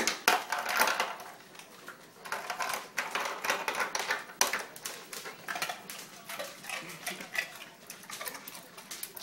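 Ice cubes clattering out of a refrigerator door's ice dispenser as a Great Dane presses the lever with its muzzle, with the dog crunching the ice. It comes as irregular runs of sharp clicks and knocks, loudest right at the start.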